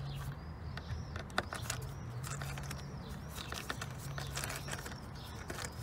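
Small birds chirping over and over, with scattered sharp clicks and light knocks from tightening the screws on the air filter cover.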